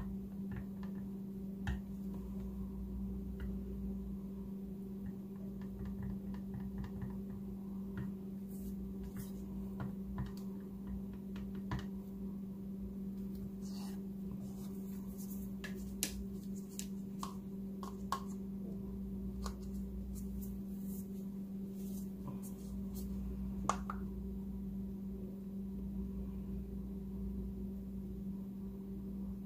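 Stirring stick clicking and tapping against a plastic cup of white acrylic paint as it is thinned: scattered light clicks, with a sharper one about 24 seconds in. A steady low hum runs underneath.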